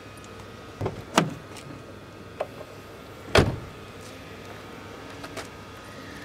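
Scattered sharp clicks and knocks, the loudest a thump about three and a half seconds in, as the newly fitted door mirror on a W211 Mercedes is moved and set into position.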